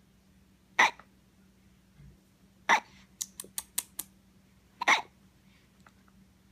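A person hiccuping three times, about two seconds apart, each hiccup short and sharp. Between the second and third hiccup comes a quick run of about five light clicks.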